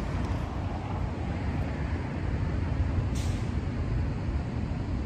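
Steady city traffic rumble, with a short hiss about three seconds in.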